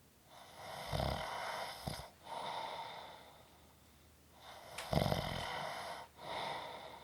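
A person snoring through two slow breaths. Each is a loud snore on the in-breath, a short pause, then a fading out-breath.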